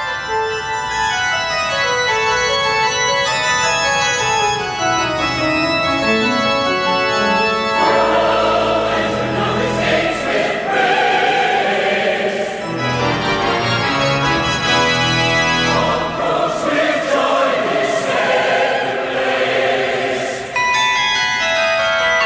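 A 52-bell carillon ringing a descending run of overlapping, sustained bell notes. About eight seconds in, organ and choir music takes over. Bell notes return near the end.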